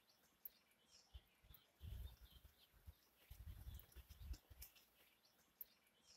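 Near silence: faint outdoor ambience with scattered faint high chirps and a few low rumbles, the longest about three and a half seconds in.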